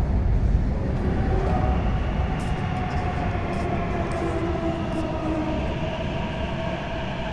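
MTR metro train moving alongside the platform behind the screen doors: a steady low rumble with a motor whine that drifts slightly down in pitch as the sound slowly fades, as when the train slows.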